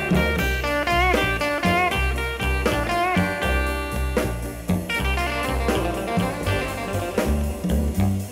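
Bluesy background music: a guitar lead playing bending notes over a stepping bass line and a steady beat.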